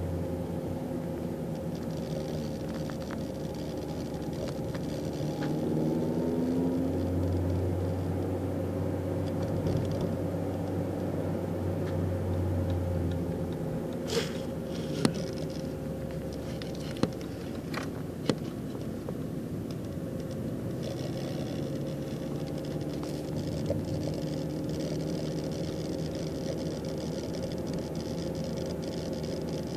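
Cabin of a 2006 Opel Astra on the move: steady engine and road noise, with a few sharp clicks from the dashboard about halfway through, four in roughly four seconds. The owner wonders whether it is the plastic dashboard.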